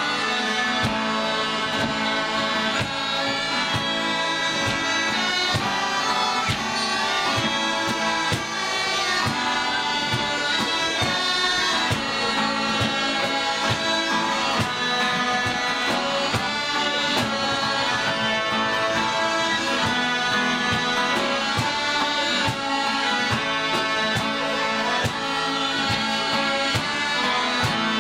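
Scottish smallpipes playing a traditional tune in unison over their steady drones, with strummed acoustic guitars keeping a regular rhythm underneath.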